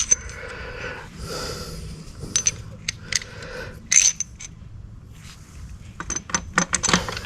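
Metal engine parts and tools clinking and scraping while main bearing caps come off a diesel engine block, with sharp ringing clinks scattered through and a quick cluster of them near the end.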